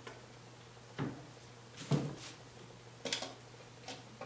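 A few separate light knocks and clicks of the white plastic Giffin Grip plate and its bottom bracket being handled while the bracket is loosened to move it, about four over a few seconds. A faint steady hum runs underneath.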